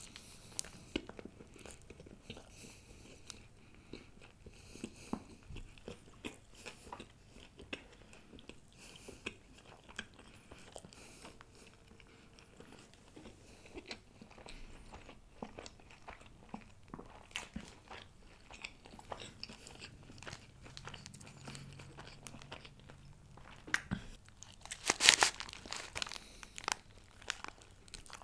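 Close-miked chewing of a chicken kathi roll (a paratha wrap): soft wet chewing clicks and small bites that go on throughout, with a louder bite about 25 seconds in.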